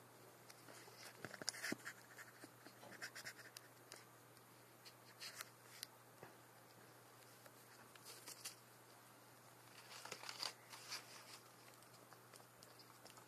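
Green iguana biting and chewing leafy greens: faint crisp crunches and tearing clicks in short clusters, the loudest about ten seconds in.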